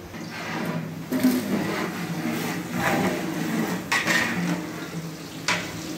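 Sliced onions sizzling in hot oil in a large aluminium cooking pot as they are tipped in and stirred, with a long metal ladle knocking and scraping against the pot a few times.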